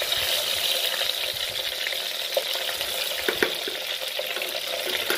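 Chopped onions and shallots sizzling steadily in hot oil in an earthenware pot as they sauté, with a few faint clicks about halfway through.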